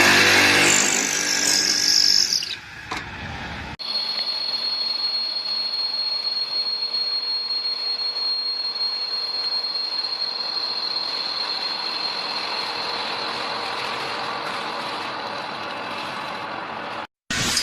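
CNC lathe running: a steady high-pitched whine over an even hiss. Near the start there is a louder, busier passage with a falling whine, which ends abruptly.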